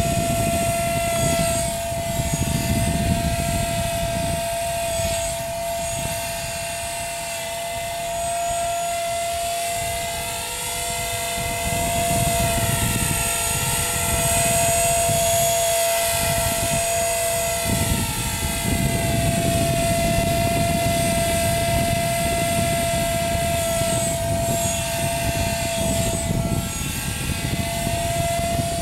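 Blade 300 CFX electric RC helicopter in flight: a steady high whine from the brushless motor and drivetrain over the whir of the rotor blades, fading a little in the middle and swelling again as it moves about.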